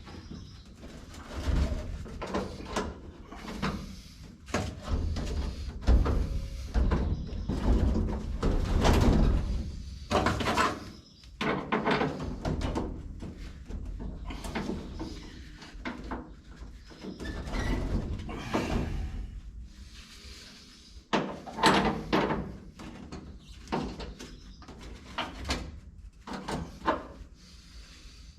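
Irregular metal clunks, scrapes and squeaks of a car door's internals being worked on: a 1955 Chevy 210's door window frame and regulator being loosened and handled during glass removal.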